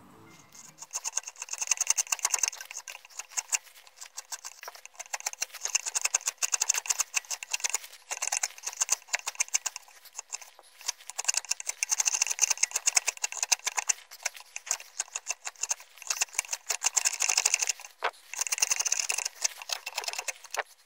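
A steel carving gouge cutting shallow scallops into a wooden board, making a rapid, crisp crackle of parting wood fibres and chips. It comes in runs of a second or two with short pauses between strokes.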